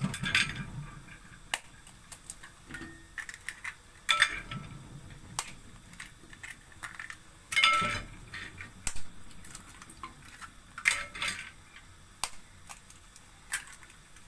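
Eggs being cracked one after another on the rim of a ceramic bowl and dropped in: a sharp crack every few seconds, some followed by a short low slosh as the egg falls into the others.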